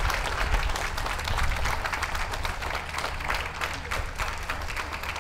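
Audience applauding, many hands clapping together, slowly dying down, over a low rumble.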